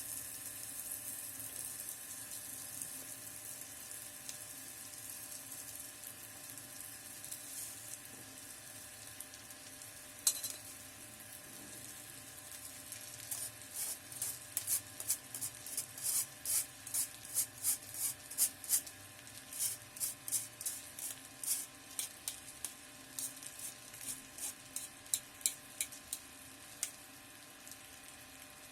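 Onion and spice mixture sizzling in an electric kettle, the sizzle fading as the switched-off kettle cools. From about halfway on, a run of quick, irregular light clicks as dry roasted vermicelli is added and stirred in.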